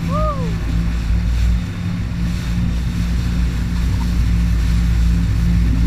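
Yamaha WaveRunner jet ski running at a steady speed: an even low engine drone under the rush of water and wind.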